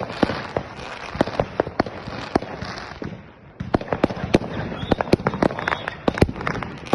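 New Year's Eve fireworks and firecrackers going off all around: a dense, irregular run of sharp bangs and pops over a continuous crackle, easing briefly a little before halfway and then picking up again.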